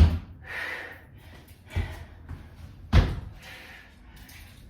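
Thuds of feet landing on the floor during jump-back and jump-in thrusters: three thuds, the loudest at the start and about three seconds in, with a softer one between them.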